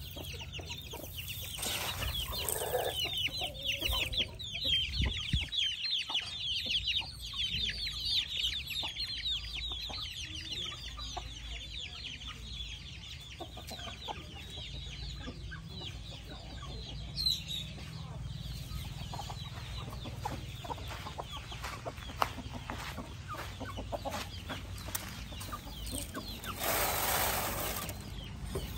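A flock of chickens, hens and roosters, clucking and calling, with a dense run of short high calls over roughly the first ten seconds.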